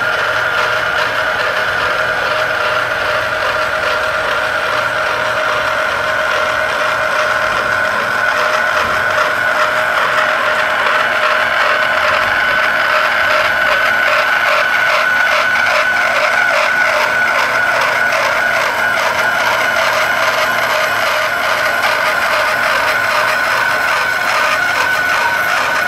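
Portable pipe end-prep machine facing the end of a 6-inch schedule 80 carbon steel pipe: a steady motor whine at two pitches over a fast, gritty scrape as the cutter trims the steel.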